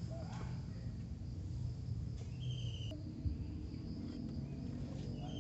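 Insect chirping in the background: a steady high buzz, with two short trills, one about halfway through and one at the end, over a low steady hum.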